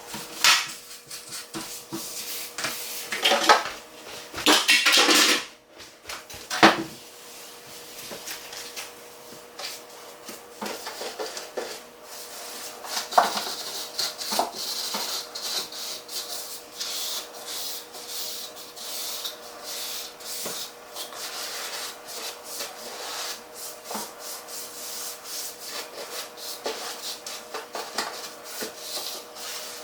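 Scrubbing the inside of a refrigerator with a cloth or sponge: repeated short rubbing strokes, with a few louder rushing bursts in the first seven seconds.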